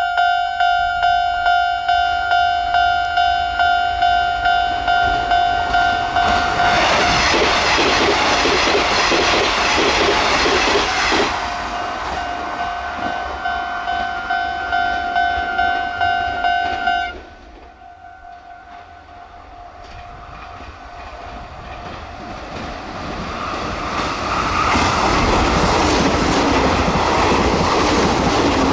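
Nishitetsu 3000-series limited express passing at about 109 km/h, with a level crossing warning bell ringing about twice a second. The bell cuts off suddenly, then a 9000-series limited express approaches and passes at about 108 km/h, getting louder toward the end.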